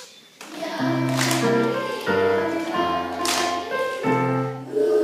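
Music accompanying a children's choir's action song: sustained chords over a steady bass line, changing about once a second, with two sharp claps about two seconds apart.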